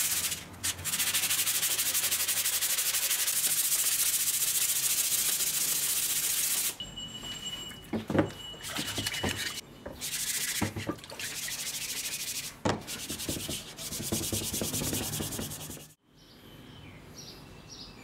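Sandpaper rubbed fast up and down a wooden axe handle: a dense, steady rasping hiss for about seven seconds, then slower, broken rubbing strokes. Near the end it gives way to a quiet background with faint repeated chirps.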